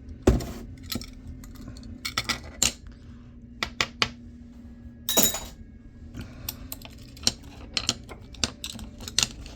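Small metal parts of a laptop hard drive clicking and clinking as it is taken apart by hand to get the read-head arm out, with a short louder burst about five seconds in.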